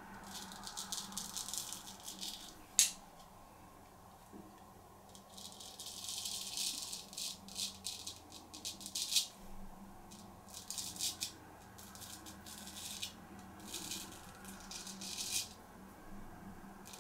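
Straight razor scraping through stubble in a series of short strokes of uneven length, with one sharp click about three seconds in.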